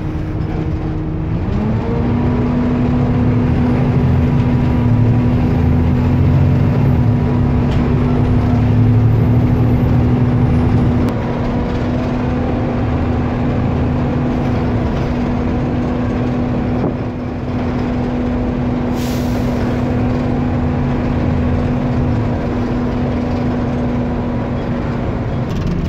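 Rear-mounted diesel engine of an Alexander ALX400 double-decker bus heard from the back seats of the lower deck, running under load with its roar. Its note rises about two seconds in, then holds a steady drone, and drops again near the end.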